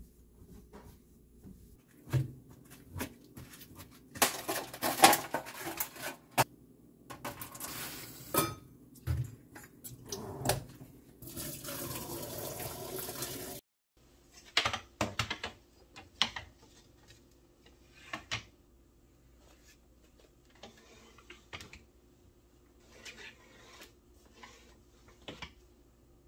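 Kitchen cleaning sounds: clinks and knocks of dishware and bottles handled at the sink, with a few seconds of running tap water that cuts off abruptly about halfway through. After that come lighter knocks of a wooden folding dish rack being set on the countertop.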